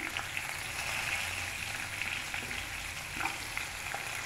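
Green chillies and garlic cloves sizzling steadily in hot oil in a nonstick pan, with a few light clicks.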